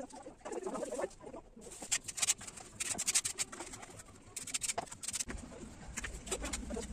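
A bird cooing low in the first second, followed by scattered scratching and clicking sounds.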